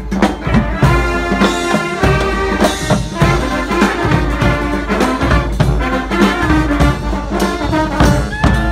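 Street brass band playing a bhangra-style tune: trombones and trumpets on the melody over a steady, driving drum beat.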